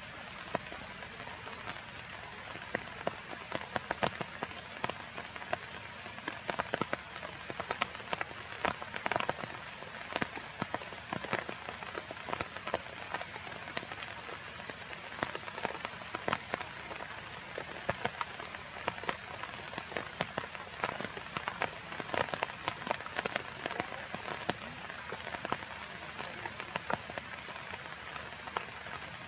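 Steady rain falling on bamboo and broad leaves: an even hiss with many separate sharp drop taps throughout.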